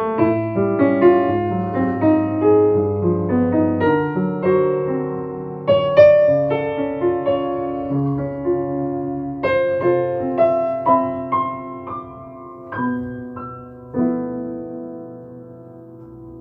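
Piano playing alone: chords and single melody notes struck a few times a second, the last chord left to ring and die away near the end.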